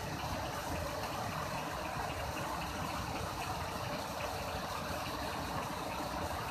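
Muddy floodwater from a river in spate pouring over a low concrete weir and churning below it: a steady, unbroken rush of water.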